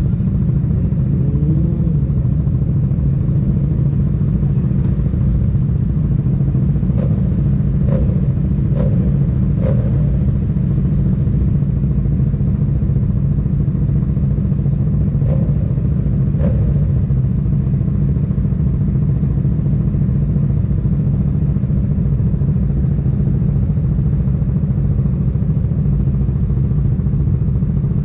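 Motorcycle engine idling steadily at a standstill. A few short, light clicks come about seven to ten seconds in and again around fifteen to sixteen seconds.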